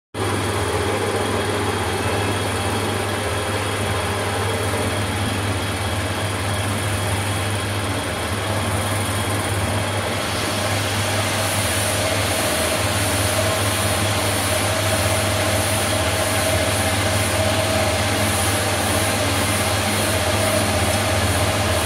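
CNC roll bending machine running steadily, its driven rollers feeding a tube through and bending it into a spiral heat-exchanger coil: a steady low hum under an even mechanical rush, which turns brighter about halfway through.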